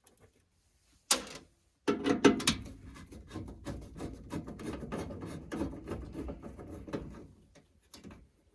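Hands and tools working on gas furnace parts: a sharp knock about a second in, then several seconds of dense rattling, clicking and rubbing.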